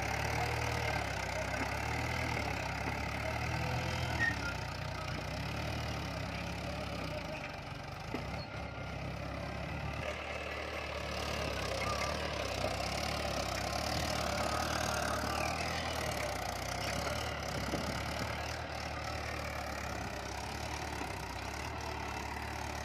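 Mahindra 475 DI tractor's four-cylinder diesel engine running steadily under load while pulling a cultivator through dry soil.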